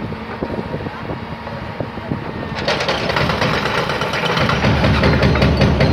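Volvo wheeled excavator's diesel engine running while its hydraulic demolition grab breaks up a concrete wall. About two and a half seconds in, a dense clatter of crunching and falling masonry begins, and near the end the engine grows louder as it works under load.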